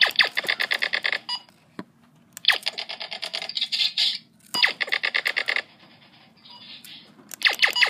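Laser tag gun firing rapid electronic shot sounds, about seven or eight a second, in four bursts with short pauses between them.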